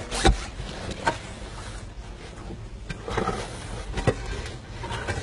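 Slabs being set in place in a grave, giving a few sharp knocks and scrapes against earth and each other.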